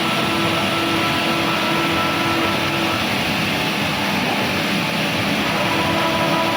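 Bacci Artist TGV 2600 CNC machining center running with a steady rushing noise and faint whining tones. One whine drops out about three seconds in, and a different whine comes in near the end.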